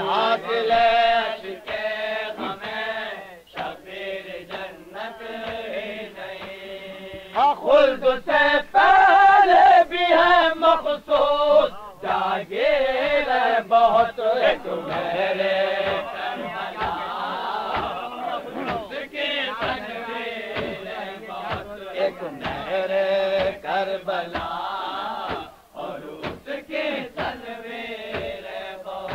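Male voices chanting an Urdu salam, a Shia devotional elegy, in a slow, melodic recitation without instruments.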